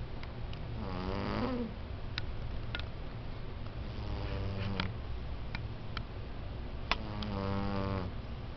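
A sleeping domestic cat snoring: three drawn-out, buzzy snores roughly three seconds apart, with small sharp clicks between them. The owner worries that snoring like this can't be healthy.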